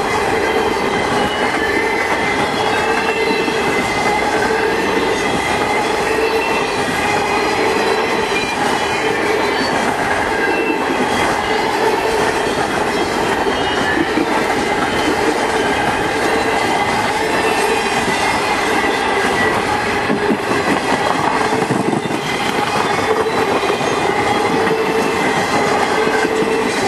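Double-stack intermodal well cars of a freight train rolling steadily past: a loud, continuous rush and clatter of steel wheels on the rails, with thin, steady squealing tones from the wheels over it.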